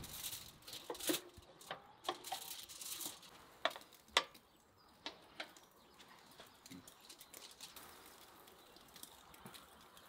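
Food-preparation handling noises: a run of rustling and clicking for about three seconds, two sharp clicks near four seconds in, then only a few soft ticks.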